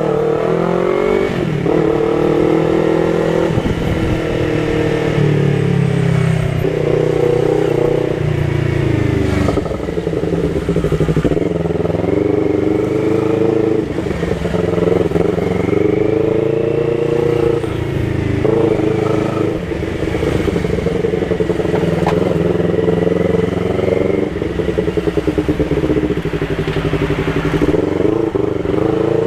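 Yamaha MT-03 motorcycle with a Jeskap aftermarket exhaust, its dB killer removed, being ridden and accelerating. The engine note repeatedly climbs in pitch through the revs, then drops back as the rider shifts gear, about ten times over the stretch.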